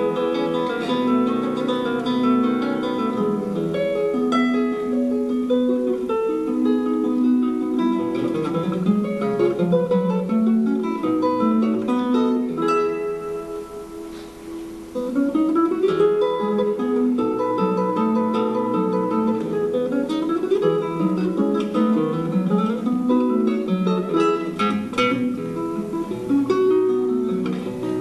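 Solo classical guitar playing a gato, an Argentine folk dance, with plucked melody over bass notes. About halfway through, the playing dies down for a moment, then comes back with a quick rising run.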